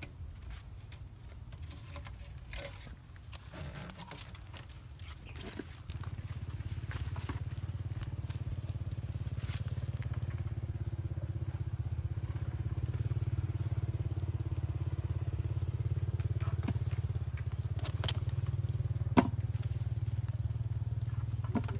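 A steady low rumble that gets louder about six seconds in, with light clicks and knocks of plastic PVC pipe fittings being handled during the first few seconds, and a single sharp click later on.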